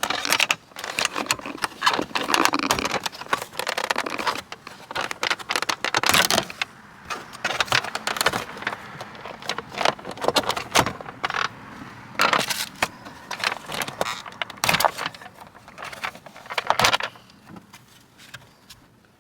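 Irregular clicks, knocks, scrapes and rattles of hand tools and the truck's plastic and metal console parts being handled, as work begins on removing the center console lid.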